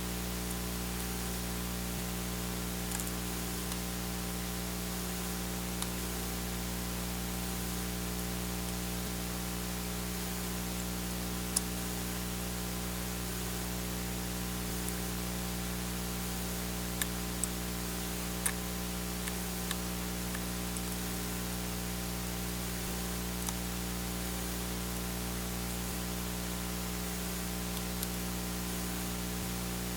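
Steady recording hiss and electrical hum, with a scattering of short faint clicks from a small Phillips screwdriver and small screws on a laptop's back plate.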